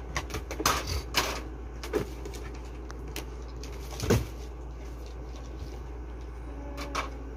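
Plastic knocks and clatters from a toy tea cart and its little plastic cups being handled: a few separate knocks in the first two seconds and a louder one about four seconds in, over a steady low hum.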